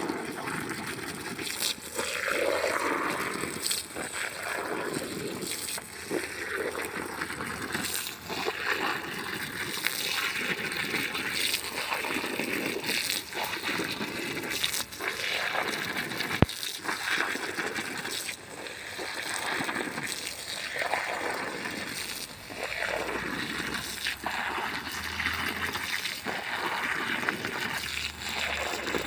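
Liquid anti-termite chemical spraying from a hose lance and spattering onto bare soil, an uneven hiss that swells and fades. A single sharp click about halfway through.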